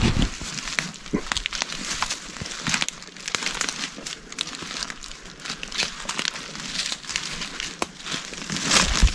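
Footsteps through leaf litter and twigs on a bush floor, with branches and ferns brushing and scraping against clothing and a backpack: an irregular run of crackles and rustles, louder just before the end.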